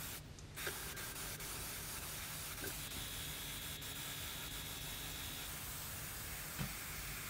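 Airbrush spraying acrylic paint: a faint, steady hiss of air and paint.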